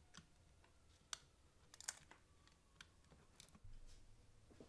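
Near silence with a few faint, sharp clicks and taps of a small circuit board and plastic parts being handled and fitted into the chassis of a Philips DCC 900 cassette deck. A faint low hum comes in near the end.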